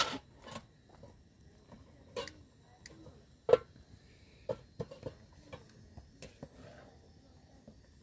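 Metal ladle knocking and scraping against a metal cooking pot while greens are stirred and scooped out: irregular clinks, some ringing briefly, the loudest about three and a half seconds in.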